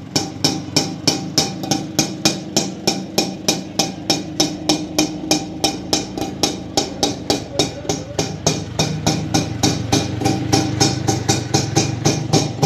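Auto-rickshaw engine running at idle, a steady hum under sharp, evenly spaced ticks about four to five times a second.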